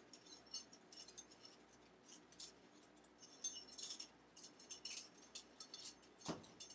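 Butterfly knife (balisong) being flipped and spun: a run of light metallic clicks and clinks from the handles and blade swinging against each other, with one louder clack about six seconds in.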